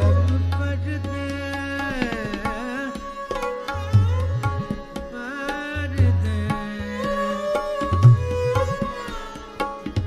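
Tabla accompanying a thumri in Raag Bhairavi, with deep, ringing bass-drum strokes every couple of seconds under a gliding, ornamented melodic line.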